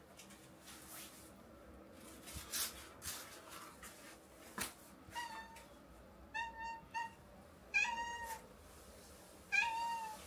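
A domestic cat meows repeatedly: about six short calls from about halfway in, three in quick succession, then two more. Before them there are a few faint clicks.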